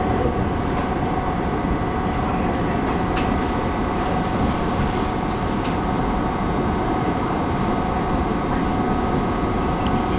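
Taiwan Railways local electric train running, heard from inside the passenger car: a steady rumble of wheels on the rails with a steady high hum and a few faint clicks.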